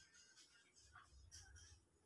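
Near silence: faint room tone with a couple of faint, brief ticks.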